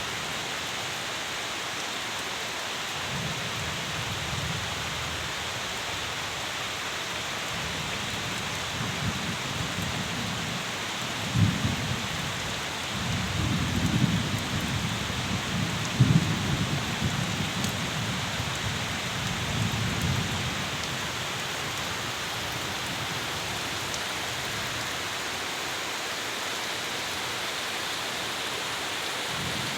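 Steady heavy rain falling, with thunder rumbling low in the middle stretch, growing to its loudest cracks about 11 and 16 seconds in before fading away.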